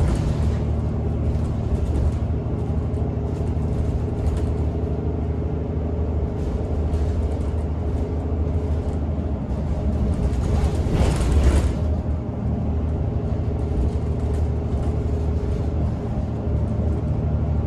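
Ride inside a TTC Orion VII NG city bus under way: the drivetrain's steady low hum under road and body noise. A brief louder rush of noise comes about eleven seconds in.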